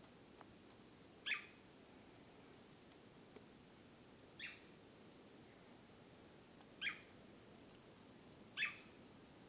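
Blue manakin (Chiroxiphia caudata) giving a short call four times, two to three seconds apart.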